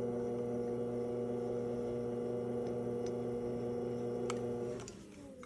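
Electric pottery wheel's motor humming steadily while it spins. Near the end the hum drops away with a falling pitch as the wheel slows.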